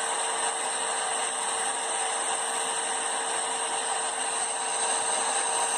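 Blacksmith's forge running: a steady rushing hiss with a faint constant hum while the iron heats. There are no hammer blows.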